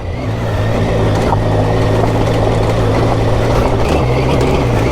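2012 Triumph Tiger 800's three-cylinder engine running at a steady, even speed, with wind and tyre noise from riding over a rocky dirt track.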